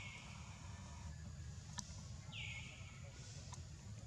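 A short high-pitched animal call, twice about two seconds apart, over a low steady rumble, with a single sharp click near the middle.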